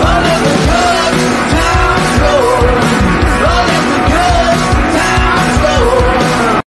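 Background song with a steady beat and a melodic vocal line, cutting off abruptly near the end.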